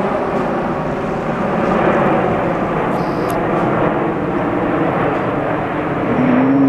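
Jet airliner on landing approach, its engines making a steady, loud broad noise; the spotter takes it for a Boeing 767. A steady low hum comes in near the end.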